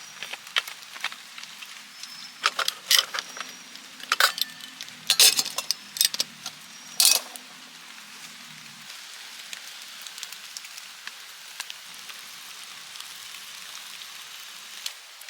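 A series of sharp clinks and knocks over a low hum, the hum stopping about nine seconds in; after that only a steady soft hiss.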